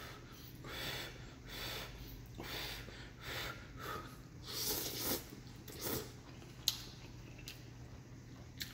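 Blowing on and slurping hot noodle soup: a run of breathy puffs over the first six seconds. Then two sharp clicks of a metal fork against the glass bowl.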